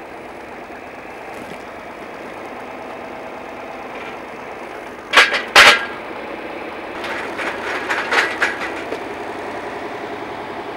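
John Deere 4020 tractor engine running steadily while its hay spear is driven into a pumpkin: two loud sharp cracks about five seconds in as the spear punches through the pumpkin, then a spell of lighter knocks and clatter.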